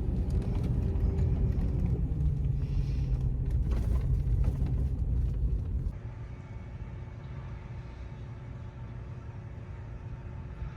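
Low, steady engine rumble of a running vehicle for about six seconds, then a sudden change to a quieter steady hum.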